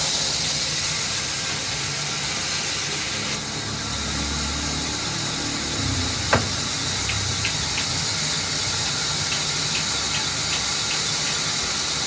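Sawmill band saw running steadily with a constant hiss as it cuts a neem log, a low rumble swelling for a couple of seconds mid-cut. One sharp knock about six seconds in.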